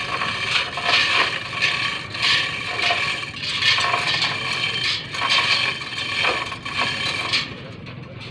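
Hand chain hoist being hauled hand over hand to lift a line array speaker column up a truss. The chain rattles and scrapes through the block in repeated clattering pulls about once a second, then stops shortly before the end.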